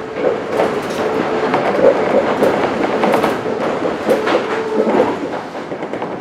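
Mitsubishi GTO-VVVF-inverter Toei 5300-series electric train running, heard inside the passenger car: a dense rolling rumble with repeated clacks over the rail joints. A steady mid-pitched hum comes and goes through it, and the noise eases slightly near the end.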